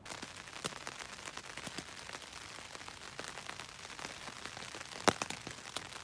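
Campfire crackling and popping, a steady hiss with many small cracks and one loud pop about five seconds in.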